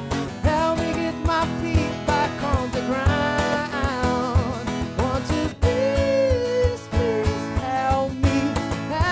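Live acoustic guitar music: strummed guitar over a steady low beat, with a bending melody line carried over it between sung verses.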